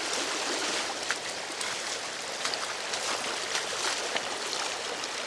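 Rainwater runoff flowing steadily down a flooded road, with scattered short ticks through the rush of water.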